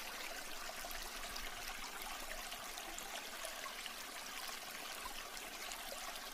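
Steady rushing of flowing water, like a stream, with little low rumble.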